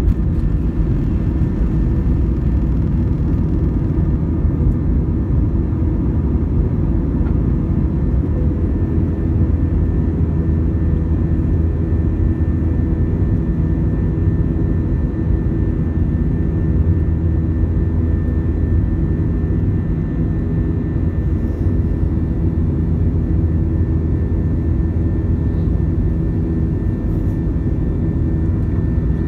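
Airliner's wing-mounted turbofan engine at takeoff thrust, heard from inside the cabin: a loud, steady roar with a steady high whine over it as the plane rolls, lifts off and climbs.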